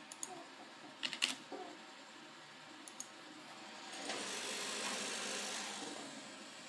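A few sharp clicks, then about four seconds in the fans of an R9 280X graphics card speed up into a rush of air that holds for about two seconds and eases back near the end.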